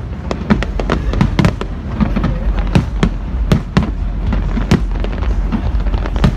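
Fireworks display going off in a dense, irregular barrage of bangs, several a second, over a steady low rumble.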